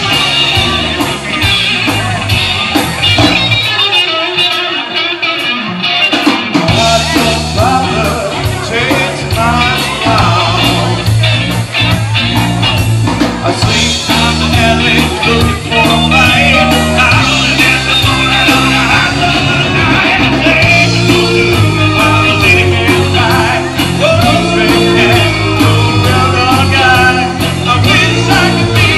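Live rock band (electric guitar, electric bass, drums and a lead singer) playing a rockabilly song through a bar PA. The bass and drums drop out for a few seconds about four seconds in, then the full band comes back in.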